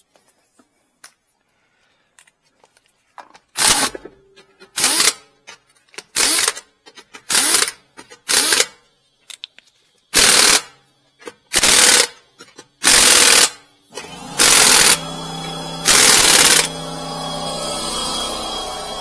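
Pneumatic impact wrench running lug nuts onto a wheel, in about ten short bursts of rapid hammering. A steady machine hum starts up underneath about 14 seconds in.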